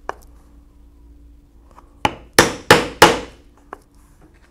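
Rawhide mallet striking a 1/8-inch round drive punch through holster leather: four sharp blows in quick succession about two seconds in, each punching a lacing hole.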